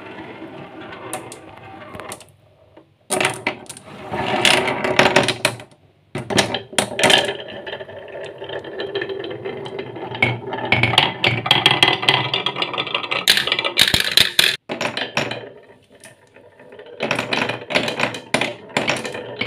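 Marbles rolling and clattering down grooved wooden marble-run tracks, wavy and zigzag channels, in runs of rattling clicks broken by a few short lulls.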